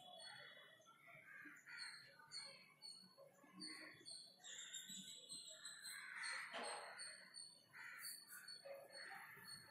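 Faint bird calls in the background, caw-like calls repeating every second or so with short high chirps, and a louder, harsher call about six seconds in.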